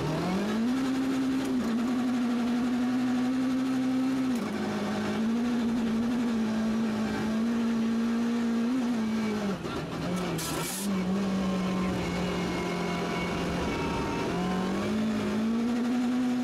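Rally car engine heard from inside the cabin at speed, held at high revs, its pitch dropping and climbing again at gear changes about four and a half, ten and fourteen seconds in. A short hiss-like burst cuts in about ten and a half seconds in.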